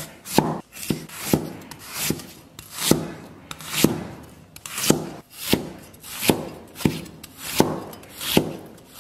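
Chinese cleaver slicing ginger on a wooden chopping block, in slow regular strokes a little over one a second; each is a short slicing scrape ending in a knock of the blade on the board.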